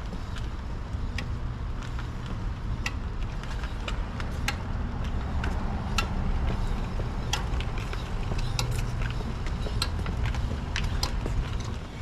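Acura RSX rolling slowly with its engine off, with a low rolling rumble and irregular light metallic ticks and clicks from the wheel area as it turns, a faint metal-on-metal sound that the owner suspects comes from a loose rear wheel spacer.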